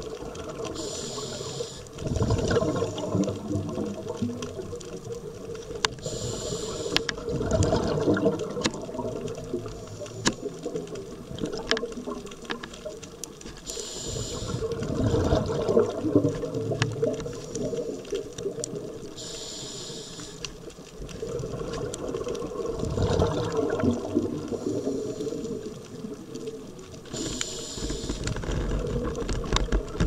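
Underwater bubbling that rises in rumbling surges every several seconds, with a brief hiss coming before several of the surges and scattered sharp clicks.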